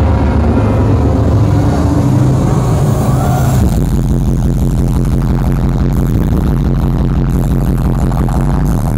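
Heavy dubstep bass music played loud over a club sound system. About three and a half seconds in it switches from held, sustained bass notes to a fast, dense pulsing bass with less treble.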